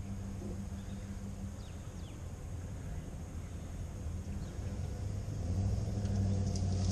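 Pickup truck engine running at a distance, idling steadily and then growing louder about five and a half seconds in as the truck starts pulling the pontoon boat on its trailer. A few faint clicks come near the end.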